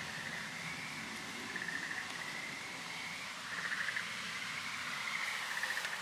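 Frogs calling: a steady chorus of high trills, each under a second long, repeating over and over.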